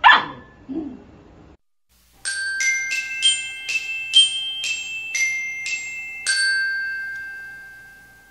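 A puppy gives one short, loud yelp falling in pitch. After a brief gap a glockenspiel melody of about a dozen bright struck notes plays, each ringing on, the last one fading out slowly.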